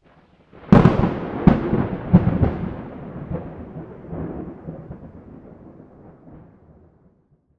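A sudden heavy boom like a thunderclap about a second in, two more cracks within the next second and a half, then a deep rumble that fades out over about five seconds: a dramatic thunder-style sound effect.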